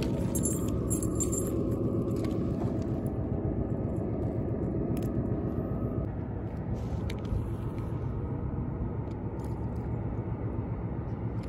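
Steady low outdoor rumble, with a few faint clicks about five and seven seconds in.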